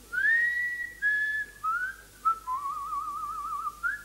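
A man whistling a short, casual tune: a few gliding, held notes, then a wavering trill in the middle, ending on a short rising note.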